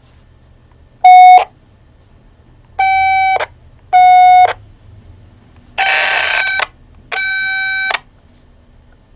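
Electronic beeps from a Yaesu VX-150 VHF handheld radio: five separate tones of the same pitch, the first short and loudest, the others about half a second each, with a burst of hiss under the fourth.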